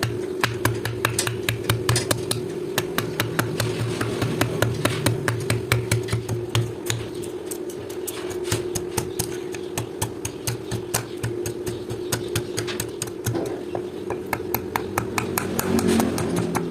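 Rapid, regular hammer blows on steel at an anvil, several strikes a second, as a file blade is forged into a knife, over a steady hum.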